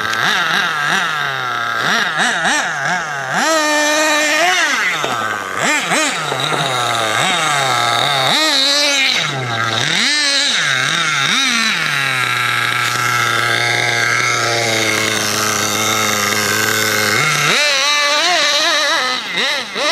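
Nitro RC buggy's small two-stroke glow engine revving up and down sharply as it is driven, then holding a steadier note for a few seconds past the middle before revving again near the end.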